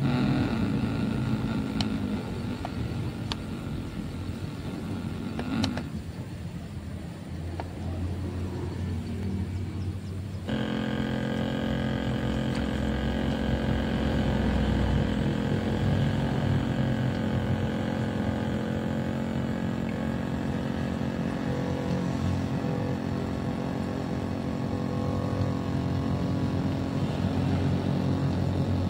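Small RC model boat motor running with a steady whine. About ten seconds in, the sound cuts abruptly from a quieter mix with a few clicks to the louder, even motor tone.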